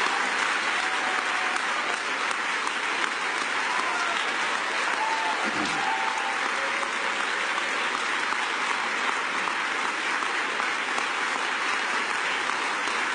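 Audience applauding: sustained, steady clapping from a large crowd, with a few faint voices calling out in it about four to six seconds in.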